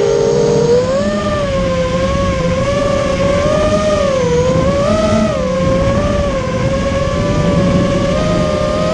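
Brushless motors and propellers of an ImmersionRC Vortex 250 Pro racing quadcopter in flight: a steady buzzing whine that rises and falls in pitch with the throttle.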